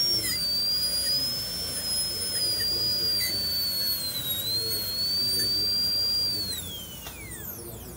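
High-speed air-turbine dental handpiece with a diamond bur whining at a high, steady pitch as it cuts an acrylic typodont tooth, the pitch dipping a little about four seconds in. Near the end it spins down with a falling whine.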